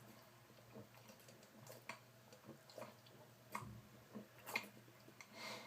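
Faint, irregular gulps and small liquid splashes, about one a second, as a can of cheap light beer is shotgunned through a hole punched in its side, with a slightly longer splashing gush near the end.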